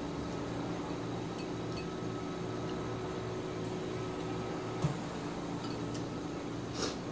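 Steady background hum, like a fan or air conditioner, with a few faint clicks of wooden chopsticks stirring noodles in a bowl, a soft knock about five seconds in and a short scrape near the end.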